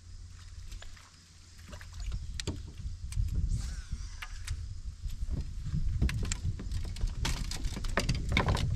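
Low rumble on the deck of a fishing boat, louder after about two seconds, with scattered clicks and knocks from casting and handling a rod and reel.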